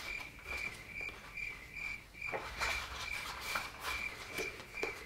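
Cricket chirping, a short chirp at one pitch repeating about twice a second, with a few faint rustles. It is the classic 'crickets' sound effect for an awkward silence.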